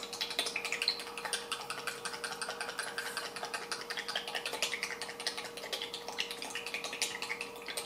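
Olive oil trickling slowly out of a bottle's pour-spout dispenser into a bowl of batter, with a fast, irregular run of small clicks and bubbly pops. The spout only lets the oil out slowly.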